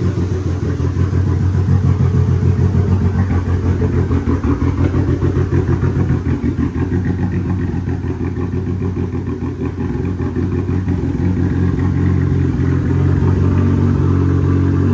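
Dodge Neon SRT-4's turbocharged 2.4-litre four-cylinder engine idling, a steady low drone with a quick pulsing beat.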